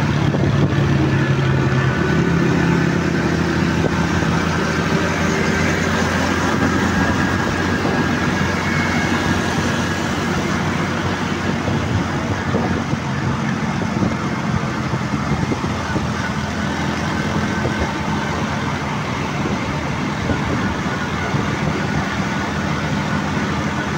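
Steady road and engine noise of a vehicle travelling along a city road, with other traffic passing close by. A low engine hum stands out in the first few seconds.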